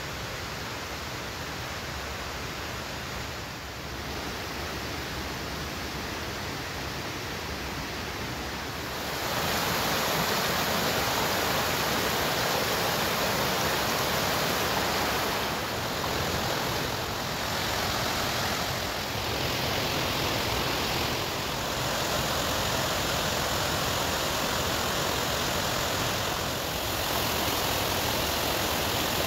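Mountain stream rushing over rocks and small cascades, a steady rush that grows louder about nine seconds in.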